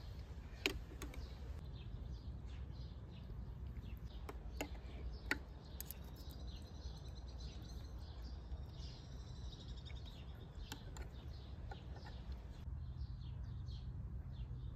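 Birds chirping and warbling, with a few sharp clinks of metal spoons against clay bowls, the loudest about a second in and again about five seconds in.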